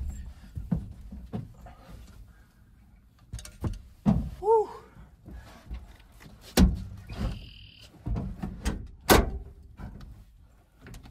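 Thumps and knocks of a person climbing into a pickup truck's bed under its topper and moving across a foam mattress, with sharper clunks about four, six and a half and nine seconds in.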